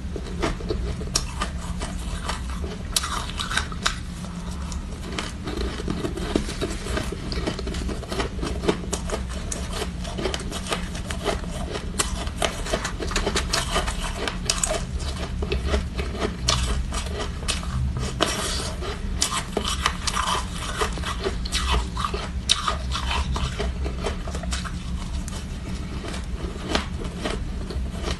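Steady, close-up crunching and crackling of soft, snow-like ice being chewed, mixed with fingers scraping ice in a metal bowl.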